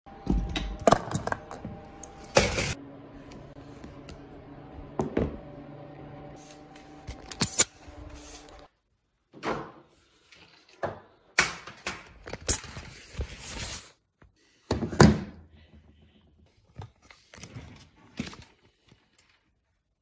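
Sharp plastic clicks and knocks from the power window and mirror switch assembly and door trim being handled. A steady hum of several tones runs under the first half and cuts off suddenly about nine seconds in, leaving only scattered handling noises.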